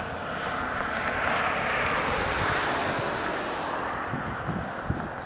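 A vehicle passing by on the road: a rush of tyre and road noise that swells to a peak about two and a half seconds in and then fades.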